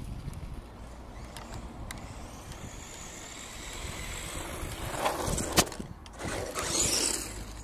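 Subotech BG1518 Tornado 1/12 RC truck running over asphalt: its brushed electric motor and hard rubber tyres make a steady low rumble with a faint high whine. A single sharp click about five and a half seconds in is the loudest sound, followed by a brief rush of hiss.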